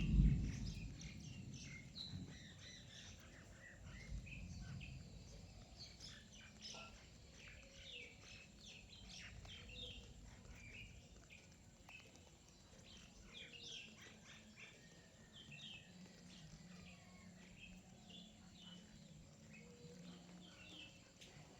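A flock of small birds chirping continuously, many short overlapping chirps. A brief low thump sounds right at the start.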